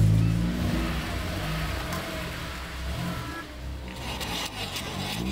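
Honda S2000's four-cylinder engine running at low revs as the car is eased out of a driveway; the engine drops sharply about half a second in, then carries on as a lower, steady rumble.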